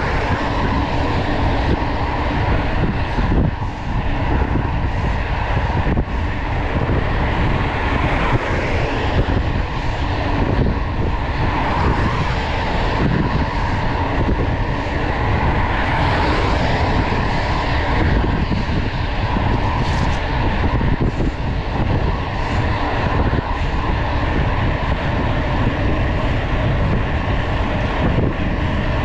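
Steady rush of wind on the microphone together with tyre and road noise from a mountain bike riding at speed on asphalt. A car passes close alongside at the start.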